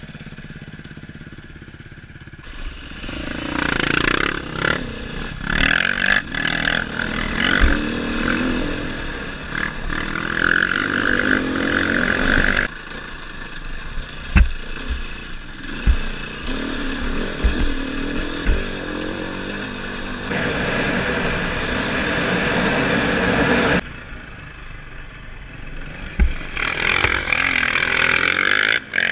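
Dirt bike engine heard close up from the rider's own bike: running low at first, then revving hard and shifting as it sets off about two seconds in, with wind rush and knocks from the bike jolting over rocks. The engine eases off briefly later on, then picks up again.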